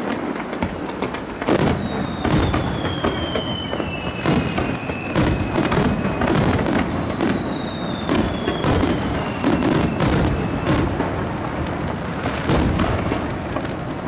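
Firework shells bursting overhead: a dense run of sharp bangs and crackles in quick succession. Two long whistles slowly fall in pitch, one in the first half and one in the middle.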